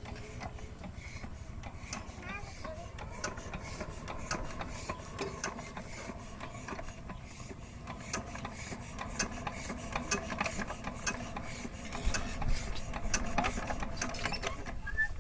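Small motor of a homemade model farm machine running, with a dense, uneven clatter of clicks from its moving parts over a steady hum; it gets louder about twelve seconds in.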